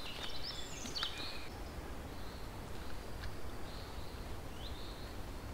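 Spring woodland ambience: small songbirds calling in short chirps and a thin high trill, over a steady low rumble of wind. A few faint clicks and rustles come from camera gear being handled.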